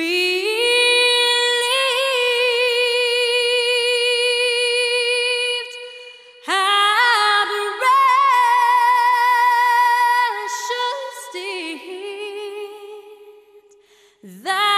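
Slow, mournful background music: a solo voice, apparently a woman's, singing long held notes with vibrato. The phrases fade out, and a new one begins near the end.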